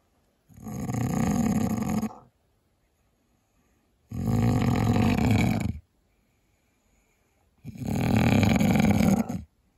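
Very loud snoring from a person asleep in a cramped car: three long snores, each lasting under two seconds, about three and a half seconds apart, with near silence between them.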